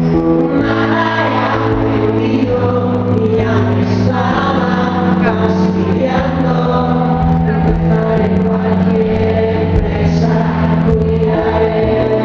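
A man singing a slow song live to his own electronic keyboard accompaniment, the keyboard holding long sustained chords that change every couple of seconds.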